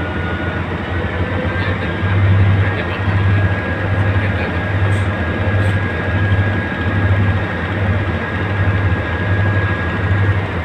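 Tugboat's diesel engine running with a heavy low throb that pulses a little more than once a second and grows louder about two seconds in, with a faint steady whine above it.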